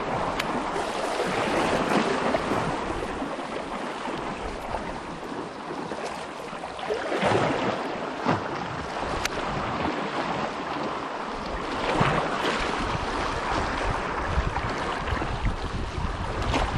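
Small sea waves washing and splashing over shoreline rocks, swelling and easing every few seconds, with some wind buffeting the microphone.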